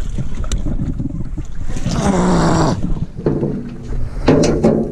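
Men's strained grunts and groans of effort while hauling a very heavy magnet-fishing catch up by rope: one about two seconds in and another near the end. Steady wind rumble on the microphone runs underneath.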